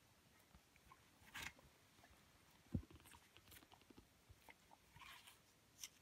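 Young Hamiltonstövare hound biting at a half-eaten apple: a few faint, scattered crunches and soft knocks, about a second and a half in, near three seconds and again near the end, with near silence between.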